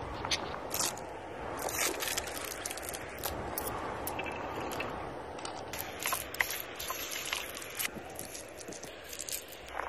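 Close-up food-preparation sounds: a knife scraping and clicking against a halved pomegranate and a wooden board as the seeds come loose, and a spoon scraping a creamy mixture out of a wooden bowl, with many short clicks throughout.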